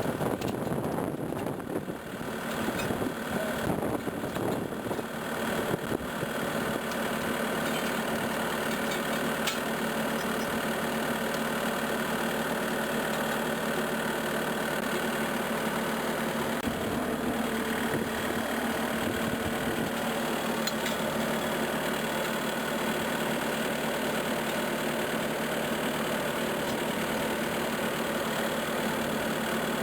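Skid steer engine running, uneven for the first few seconds and then steady, while the machine is used to walk its newly fitted tracks together and take up their slack.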